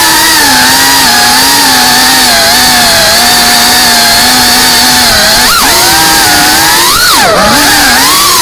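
Multirotor drone's motors and propellers whining loudly and steadily. The pitch shifts with the throttle, with quick swoops down and back up about two-thirds of the way through and again near the end.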